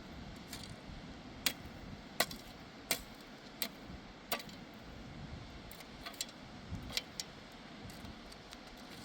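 Sharp clinks of a hand tool striking during masonry work: five evenly spaced strikes about one every 0.7 s, then lighter, scattered taps, over a steady background hiss.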